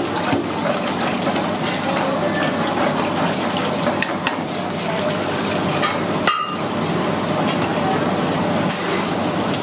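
Masala gravy sizzling in a pan over a gas flame while a ladle stirs it, with a few short clinks of the ladle against the pan.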